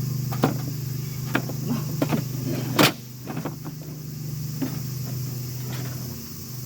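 Metal fire-pit parts knocking and clicking as they are handled and fitted together: a series of sharp clicks, the loudest about three seconds in. A steady low hum runs underneath.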